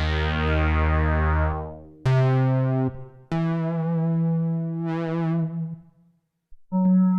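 Kurzweil K2vx synthesizer preset played as held keyboard chords, three in a row, each starting bright and mellowing as it sustains. A short silence comes about six seconds in, then a different, steadier tone starts.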